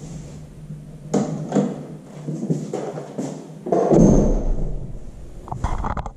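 Footsteps and knocks of someone walking through rooms, with a louder rumbling thump about four seconds in.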